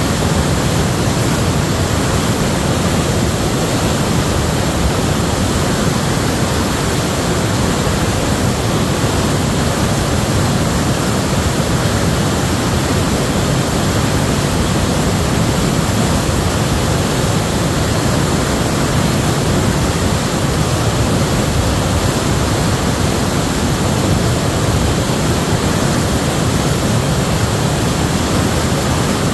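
San Lorenzo River in storm flood, muddy runoff pouring over a drop into churning rapids: loud, steady rushing whitewater.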